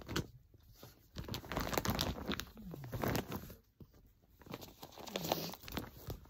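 Bag and packaging crinkling and rustling as yarn is packed back into a bag, in irregular bursts with two short quiet gaps.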